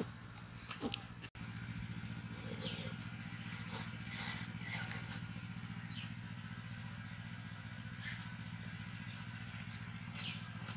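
A steady low motor-like drone runs throughout, with a few short high falling chirps now and then. The sound cuts out for an instant about a second in.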